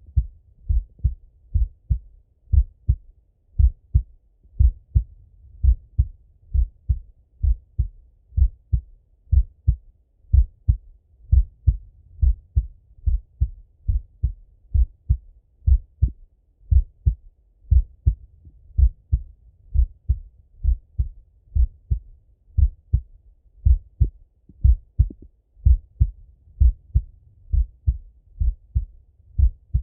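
A man's slow, steady heartbeat heard through a Littmann stethoscope on the chest: an even run of dull thumps, often in close pairs.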